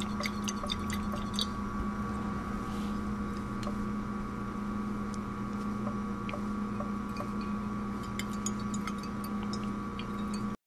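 Steady low room hum with scattered faint ticks and clinks from a glass Erlenmeyer flask of sample being swirled under a buret tip during an EDTA titration. The sound cuts off abruptly near the end.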